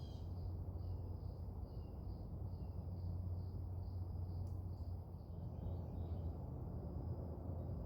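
Insect chirping in an even, steady rhythm, about two to three high chirps a second, with a few faint bird chirps, over a steady low hum.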